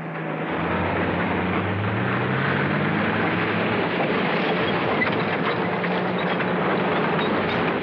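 Tank engine running under a steady rush of noise, its pitch climbing over the first few seconds.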